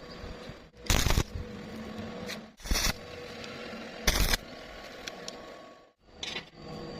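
Three short metal scrapes, about a second and a half apart, over a steady background hum.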